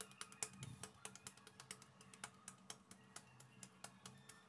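Faint, irregular soft taps of hands patting and pressing a stuffed kachori of dough between the palms, several taps a second.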